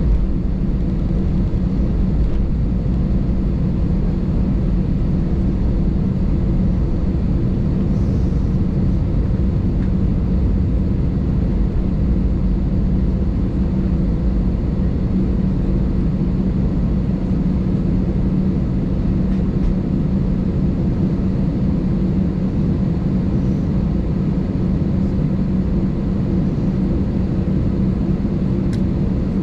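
Steady cabin noise inside an Airbus A220 on the ground, its Pratt & Whitney PW1500G geared turbofans at idle: an even rumble with a steady low hum.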